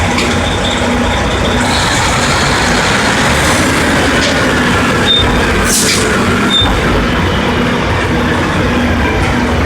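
Drilling rig machinery running loud and steady, with a few sharp knocks and a short burst of hiss about six seconds in.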